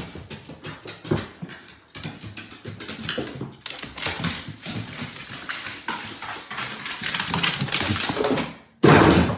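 A dog's claws clicking and pattering quickly and unevenly on hardwood stairs as it runs up the steps. A short, loud burst of noise comes near the end.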